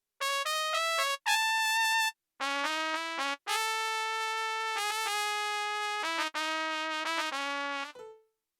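Trumpet sound from a Roland XPS-series keyboard playing a melody of separate notes in several short phrases with brief gaps, stopping about eight seconds in.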